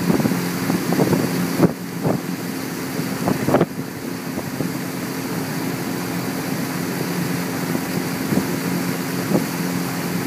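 Pontoon boat's motor running steadily under way, with wind buffeting the microphone. A couple of brief thumps come in the first four seconds.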